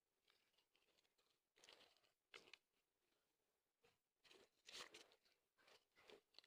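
Dry mud chunks crunching and crumbling, in several short bursts, the loudest a little under five seconds in.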